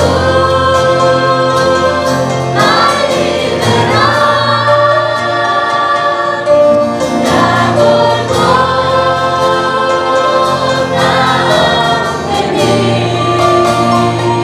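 A small group of women singing a church hymn together in long held notes, phrase after phrase, accompanied by an acoustic guitar.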